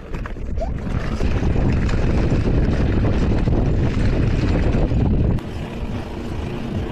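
Wind buffeting a handlebar camera's microphone over the rumble and rattle of mountain-bike tyres on a rough, rocky dirt track during a fast descent. About five seconds in the noise drops and changes at a cut in the footage.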